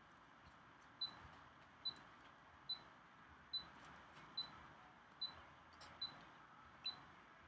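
Eight short, high-pitched blips at an even pace, a little more than one a second, over faint room tone.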